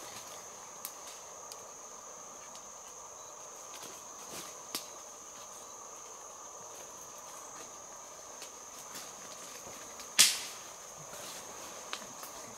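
Tropical forest insect chorus: a steady high-pitched insect drone over a lower buzzing band, with scattered faint clicks and rustles of footsteps on the forest floor. One sharp, loud crack comes about ten seconds in.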